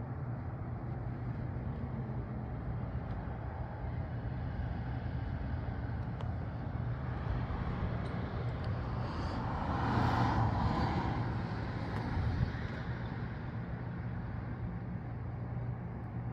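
Steady outdoor background hum, with a car driving past that swells to its loudest about ten seconds in and then fades away.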